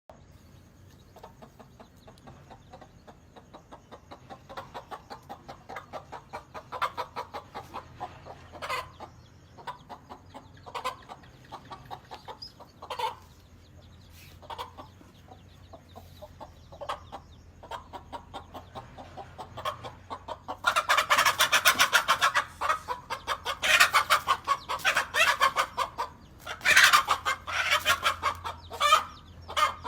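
Hen clucking in quick repeated notes that grow louder, then breaking into loud, harsh squawking from about two-thirds of the way in: the alarm calls of a mother hen defending her chicks.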